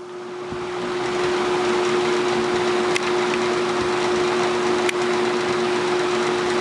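1977 Lakewood/Kmart K-14X box fan with its Fasco motor coming up to speed on high: a rush of air that builds over about the first second, then runs steadily over a constant motor hum. Two brief clicks sound along the way, part of a chatter on high whose cause the owner can't place.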